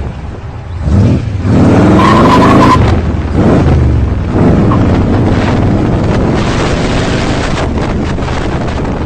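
4-litre Rover V8 in a hot rod accelerating hard under load, the revs climbing several times with short dips in between as it goes up through the gears.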